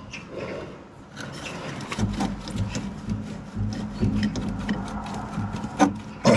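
Pipe grips scraping and clicking against the plastic push-fit connectors of a new filter's pipes as they are squeezed home, with a sharp click near the end. A steady low hum comes in about two seconds in.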